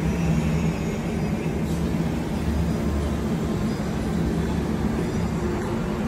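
Steady low droning hum over a dense, even rumble, with no single sound standing out.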